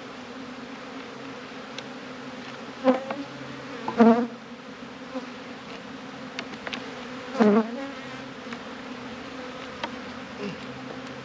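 Honey bees buzzing over an open hive, a steady hum of many bees. Three louder buzzes, about 3, 4 and 7.5 seconds in, come from single bees flying close past.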